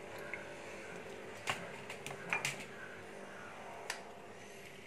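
Plastic hand-press lemon squeezer being pressed over a glass of tea, giving a few faint clicks and drips about one and a half, two and a half and four seconds in, over a low steady hum.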